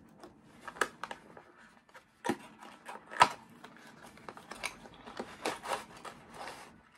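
A small cardboard product box and its packaging being handled and opened by hand. A few sharp taps and clicks come first, the loudest about three seconds in, followed by a run of quick rustling and scraping near the end.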